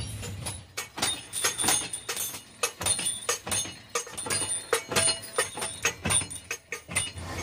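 Irregular metal-on-metal clanks and knocks, several a second, some with a short ring, from metalworking in a pliers workshop.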